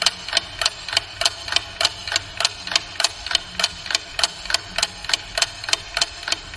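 Ticking-clock timer sound effect: sharp, even ticks, about three a second.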